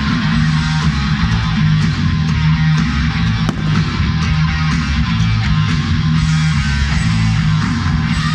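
Loud rock music with electric guitar, with a single sharp crack about three and a half seconds in.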